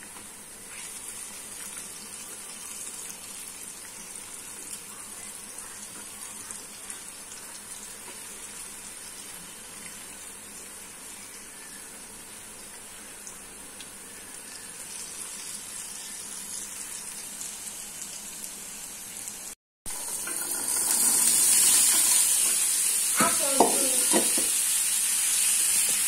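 Oil sizzling steadily as peyaju (lentil and onion fritters) deep-fry in a pan. About twenty seconds in, the sound cuts and a much louder sizzle follows as dabli (dried yellow peas) fry and are stirred in a pan.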